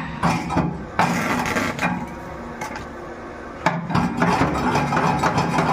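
Hammering on a steel box: irregular metal strikes and clanging, with quick runs of blows about a second in and again from about four seconds in, over a steady low hum.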